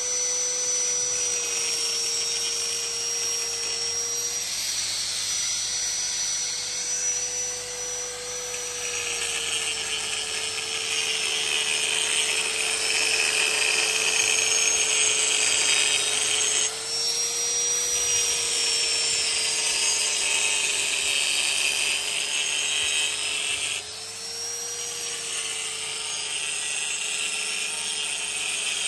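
Electric grinder running steadily on steel, with a harsh grinding hiss that strengthens and eases over several passes. The motor's hum sags a little in pitch as the blade is pressed to it.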